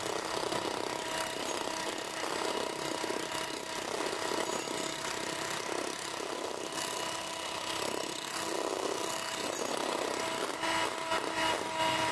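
Electric hand mixer running steadily, its twin beaters whipping egg whites to a foam in a stainless steel bowl; a constant motor whine.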